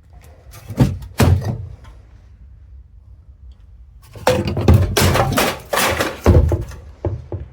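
Metal knocking and clattering as a bracket is worked off a copper heat exchanger: two sharp knocks about a second in, then a longer, louder run of clanks and rattling in the second half, with a few lighter knocks near the end.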